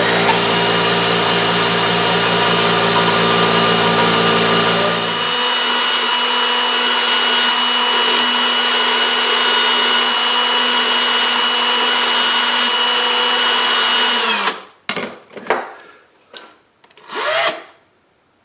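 Electric drill spinning at high speed with a nail head held against a running grinder, being turned down and bevelled into a fake rivet head. A lower motor hum drops out about five seconds in, and the drill's steady whine runs on until it stops about fourteen seconds in. A few short scraping and handling sounds follow.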